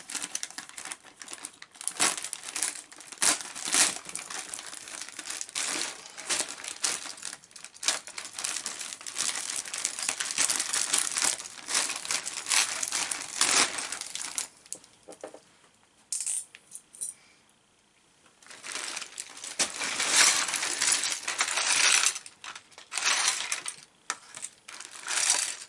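Clear plastic bag crinkling as it is handled, with loose LEGO bricks and plates clicking and rattling against each other inside. Quieter for a few seconds a little past the middle, then the crinkling and clatter pick up again.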